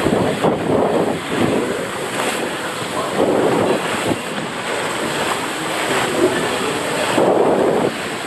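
Water rushing and splashing along a water-slide flume as a rider slides down it, heard from a camera riding just above the water. The rush swells louder every few seconds as the slide bends.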